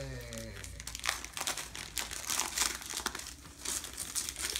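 Gift wrapping paper being torn and crumpled off a boxed present: irregular crackling rips and crinkles.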